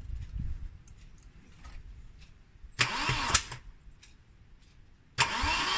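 Starter motor cranking a Volvo 'turbo brick' four-cylinder engine that spins without firing, because its spark plugs are out and the ignition is disconnected for a compression test. A short burst of cranking comes about three seconds in, then steady cranking starts about five seconds in, its pitch rising and falling with each compression stroke.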